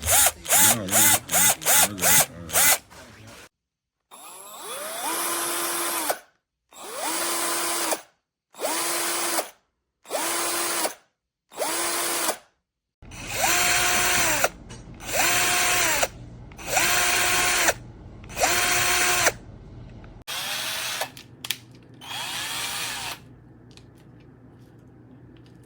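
Cordless drill motor pulsed on the trigger: about half a dozen quick blips, then roughly a dozen separate runs of one to two seconds each. On every run the motor spins up to a steady whine and then stops.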